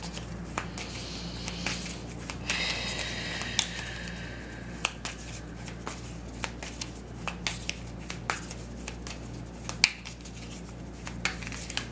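A deck of tarot cards shuffled by hand: irregular soft clicks and snaps of card edges slipping against each other, over a steady low hum.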